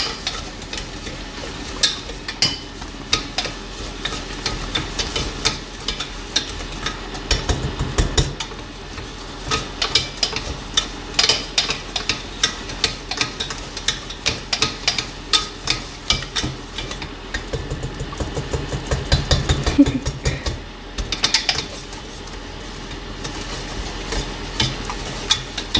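Silicone-coated whisk beating thick choux pastry dough in a stainless steel saucepan: a quick, uneven run of taps and scrapes against the pan as the flour is cooked out of the paste.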